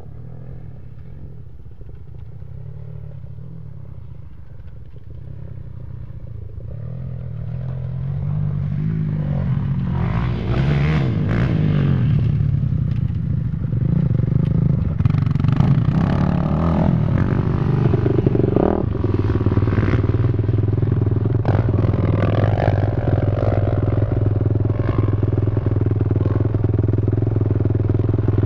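Off-road dirt bike and quad engines, faint at first and growing louder over several seconds as the machines come near, revving with rising and falling pitch and some clatter, then settling into a steady engine drone.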